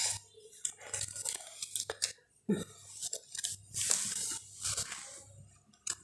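Cardboard jigsaw puzzle pieces handled on a carpet: scattered light rustles and clicks as they are picked up, slid and set down.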